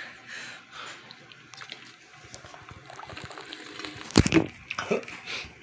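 Water sloshing in a large plastic bottle as it is drunk from, with small handling clicks. A loud knock comes about four seconds in as the camera is fumbled.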